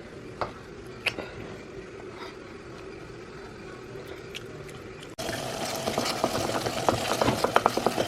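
A pot of minced meat stew cooking on the stove: soft steady bubbling, then, after a cut about five seconds in, louder sizzling with many quick crackles and clicks.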